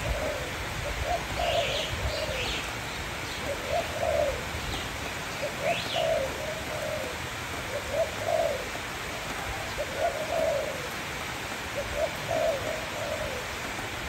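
Spotted dove cooing, a low phrase of a few coos repeated about every two seconds. A few brief high chirps from another small bird come through in the first half.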